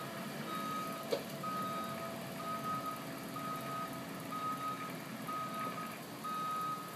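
Excavator backup alarm beeping steadily at one pitch, about once a second, over the diesel engine running as the machine moves sand along a ditch. One brief clank sounds about a second in.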